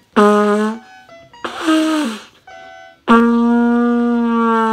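Beginner's trumpet blowing open notes with no valves pressed: a short blast, then a breathy note that sags in pitch, then a long held note about three seconds in that drifts slightly flat as it fades.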